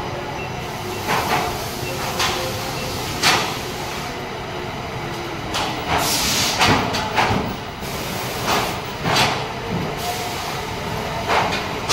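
Factory floor noise: a steady machinery din with repeated short clattering strokes, and a longer hiss about six seconds in.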